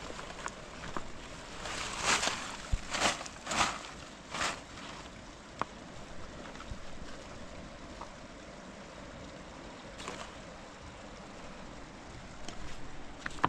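Steady rushing of a fast-flowing river, with a few short bursts of noise between about two and five seconds in.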